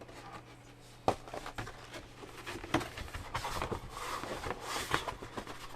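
Hands rummaging inside a vinyl record's cardboard jacket and paper sleeves, with paper and card rustling and scattered clicks and taps, a sharper tap about a second in.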